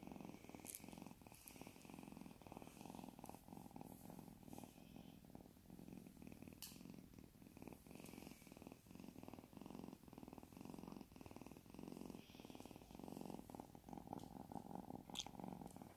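Burmese cat purring steadily and quietly while being held and stroked, a sign of contentment. A faint click sounds near the end.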